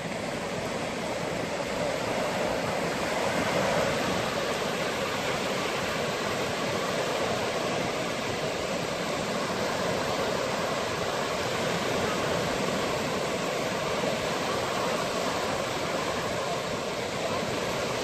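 Sea surf: small waves breaking and washing up onto a sandy beach, a steady rushing noise with no distinct breaks.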